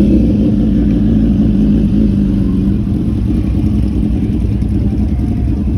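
A car engine running with a loud, steady low drone.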